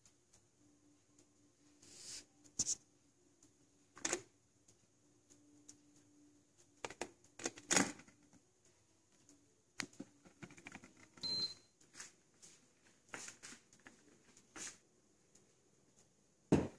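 A glass electric tea kettle being handled: a series of separate clicks and knocks from its lid and body, the loudest knock near the end. A faint steady hum runs through the first half, and a brief high tone sounds once about eleven seconds in.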